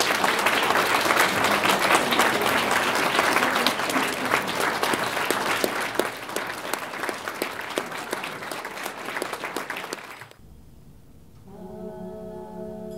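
Audience applauding, the clapping thinning and dying away about ten seconds in. Near the end a solo voice starts singing one long held note.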